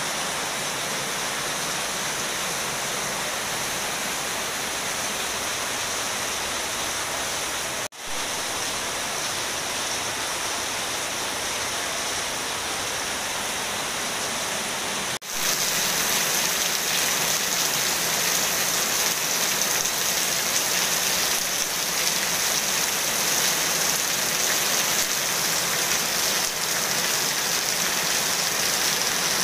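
Heavy rain falling on a swimming pool and wet paving, a steady hiss. It breaks off for an instant twice and is louder after the second break, about halfway through.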